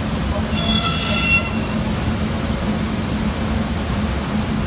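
Northwood TA125MT CNC router running, its spindle working a wooden part: a steady machine hum and noise, with a brief high-pitched whine about half a second in that lasts about a second.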